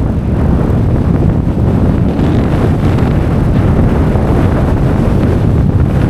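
Strong wind buffeting the microphone: a loud, steady low rumble.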